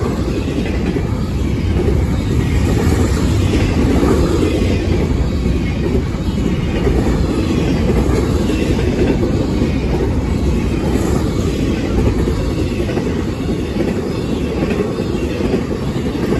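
Double-stack container cars of an intermodal freight train rolling past close by: a steady rumble of steel wheels on rail.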